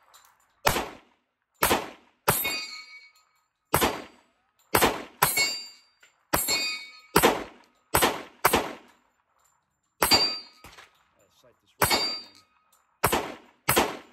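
Sig Sauer P320 XTEN Comp compensated 10mm pistol firing about fourteen single shots at an uneven pace, roughly half a second to two seconds apart. Each shot is sharp and loud with a short ringing tail.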